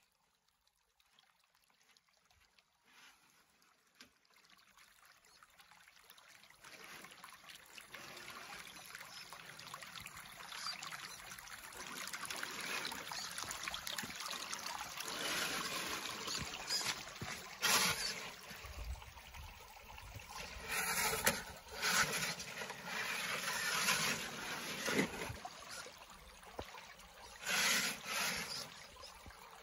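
Shallow creek water trickling over rocks, faint at first and growing louder, with a few short louder rushes of noise.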